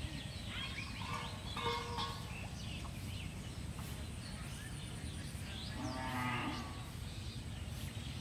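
A cow mooing, with one long low call about six seconds in and a shorter higher call about a second in, over scattered bird chirps and a steady low background rumble.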